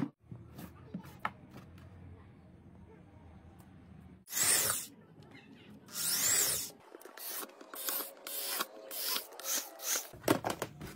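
Small drill boring holes through the plastic wall of a drum along a crack, in short bursts: two longer bursts about four and six seconds in, then several quick ones.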